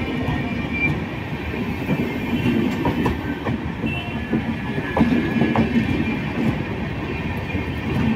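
Passenger coaches of a departing express train rolling past close by, with a steady rumble of wheels on rail and irregular clacks over the rail joints. A few brief high wheel squeals come through.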